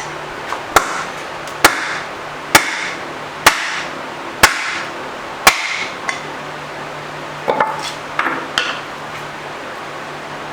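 A hammer striking the rusted, seized tailstock of a Monarch 10EE lathe to knock it loose: six hard, ringing blows about a second apart, then a few lighter knocks near the end.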